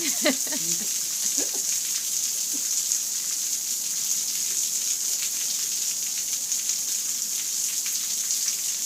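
Steady rain falling and pattering: an even hiss with many small drop ticks. A short voice sounds in the first second or so.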